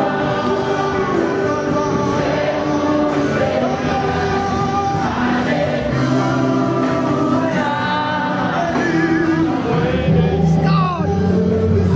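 A choir singing a gospel hymn, several voices holding notes together, with a quick falling swoop about ten seconds in.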